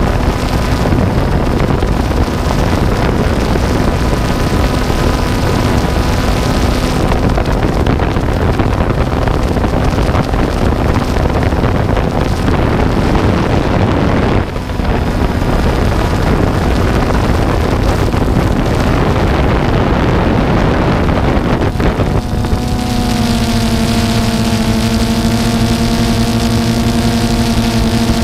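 Motor and propeller hum of a small aircraft, under heavy wind noise on the microphone. About 22 seconds in the hum grows louder and clearer, holding a steady pitch with a slight waver.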